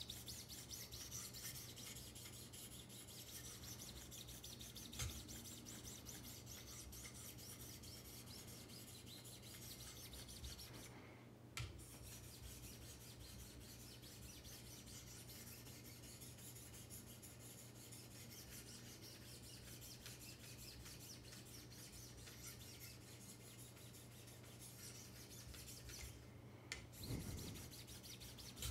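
Fine 1500-grit stones of a Wicked Edge guided sharpening system stroked along a knife's edge: a faint, steady rasping rub, with a couple of light clicks.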